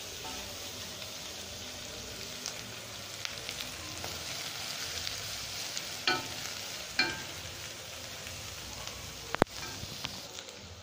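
Rinsed omena (small sardines) sizzling in hot oil in a saucepan while being stirred with a wooden spoon, a steady hiss as the water on the wet fish cooks off. A few sharp knocks come through, the loudest about nine seconds in.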